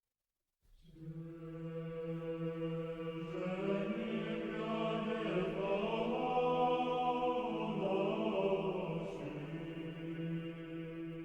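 Choir chanting. A low note is held throughout while higher voices move above it from about three seconds in, and the singing cuts off abruptly at the end.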